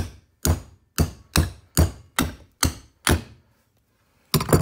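Eight sharp knocks at about two a second, then a pause and a quick double knock near the end: blows on a disassembled furnace blower motor, driving the rotor shaft through its bearing.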